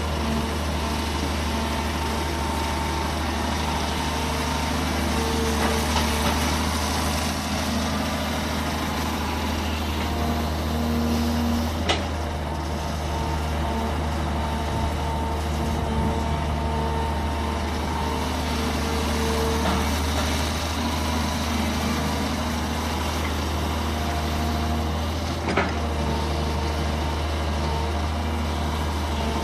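Long-reach Daewoo hydraulic excavator working, its diesel engine running steadily with whining tones that come and go as the hydraulics work. Two sharp knocks sound, one before halfway and one near the end.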